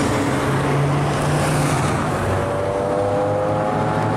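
Motor vehicle running with steady road and engine noise, the engine note rising slowly in pitch in the second half.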